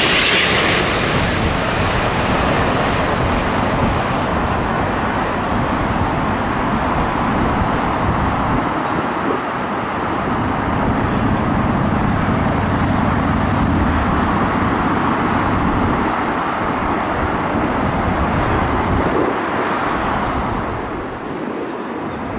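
A landing jet airliner passes low overhead: the engine roar is loudest and hissiest in the first second, then becomes a steady, duller roar that slowly fades as the aircraft moves away. Gusts of wind rumble on the microphone.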